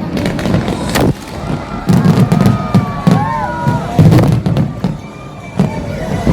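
Fireworks going off in quick succession: many sharp bangs and crackles over low rumbling booms. A few gliding whistle tones rise and fall in the middle.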